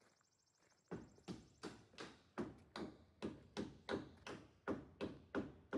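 Brisk footsteps on wooden planks and plywood concrete wall forms: a knock about three times a second, starting about a second in.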